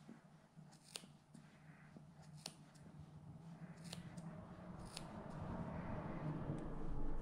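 Small grooming scissors snipping through an angora rabbit's wool: a handful of sharp snips about a second or more apart, cutting out mats. A low rustle of handled wool grows louder toward the end.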